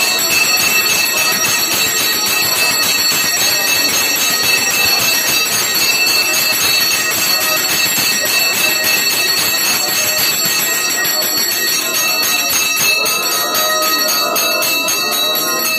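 Puja bell rung rapidly and without pause during the aarti lamp-waving: a continuous bright metallic ringing.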